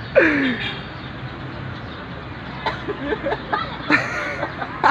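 Short vocal cries: a loud one right at the start whose pitch falls steeply, and a harsher call about four seconds in, with scattered faint sounds between.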